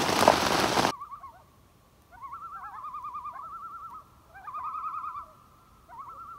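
Heavy rain pounding on a tent, cutting off abruptly about a second in. Then common loons calling: a long steady wail with wavering tremolo calls over it, in repeated bouts.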